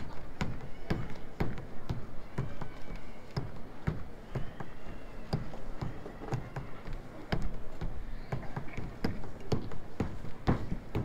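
Footsteps on hard pavement at a steady walking pace, about two steps a second.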